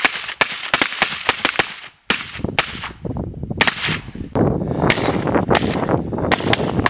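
Several suppressed rifles firing in a fast, irregular stream of overlapping shots. There is a brief break about two seconds in, and the fire grows denser in the second half.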